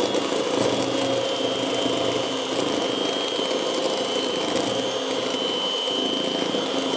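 Aurora electric hand mixer running steadily, its beaters whisking cake batter of eggs, sugar and flour in a plastic bowl, with a constant high-pitched motor whine.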